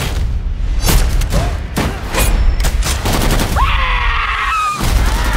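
Action-trailer sound mix: several sharp gunshots between about one and two and a half seconds in, over a heavy low rumble, then a woman screaming for about a second near the end.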